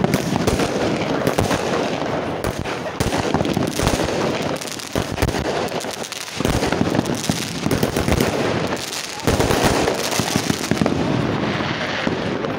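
Fireworks going off in a dense, continuous barrage: many sharp bangs and crackles overlapping, very loud, with aerial shells bursting overhead.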